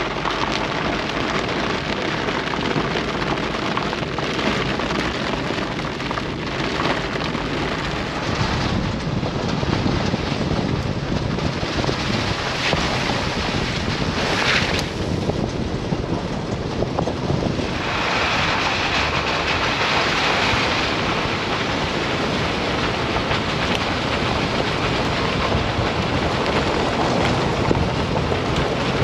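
Heavy rain falling steadily, with wind on the microphone: an even, unbroken rushing noise.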